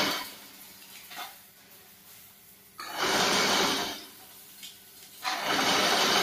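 Chain-link fence weaving machine twisting galvanized wire into the mesh: rasping metallic whirring in bursts about a second long, one roughly three seconds in and another starting near the end, each cycle about two and a half seconds apart.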